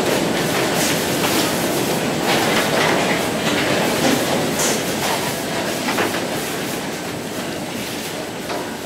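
Steady industrial din of a waste-sorting line: the conveyor belt and sorting machinery running, with frequent clicks and clatter of paper and packaging moving along the belt and being handled. The din slowly fades over the last couple of seconds.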